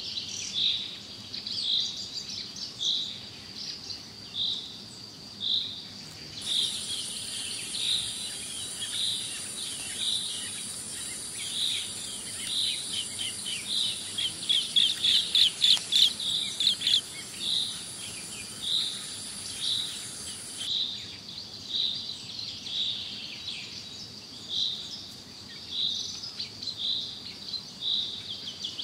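Bird calls: a short high chirp repeated a little more than once a second, with a fast run of chirps about halfway through. A steady very high insect buzz comes in suddenly about six seconds in and cuts off about twenty seconds in.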